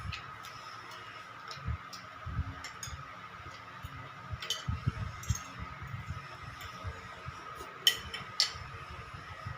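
Eating at a table: cutlery clinking against a plate in scattered light ticks, with two sharper clinks close together near the end and soft low mouth-and-handling thuds between them. A faint steady high tone hums underneath.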